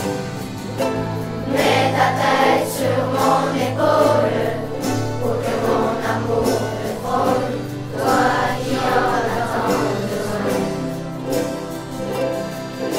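A class of children singing together in French with a group of ukuleles strumming along, over a sustained low bass line.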